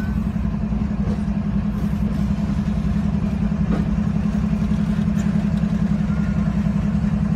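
A Union Pacific diesel locomotive's engine running as the locomotive rolls slowly past at close range, a loud, steady low rumble.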